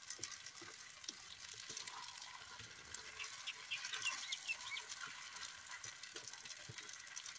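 Wooden spatula stirring and scraping fried rice in a steel kadai over a wood fire, with a steady faint sizzling hiss and scattered small clicks.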